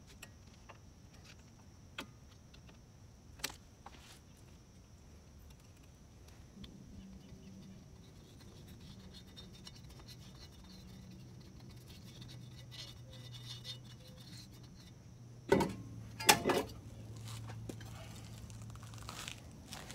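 Light metallic clicks and taps of hand work at a wheel hub, then about three-quarters through two loud metal clanks close together as the Infiniti FX35's brake rotor is slid over the wheel studs onto the new front hub. A faint low hum runs underneath from about a third of the way in.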